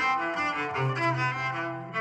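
The LG-T390K Wine 3G mobile phone's alarm ringtone playing: a string-like melody of quick notes over a low note held from about the middle.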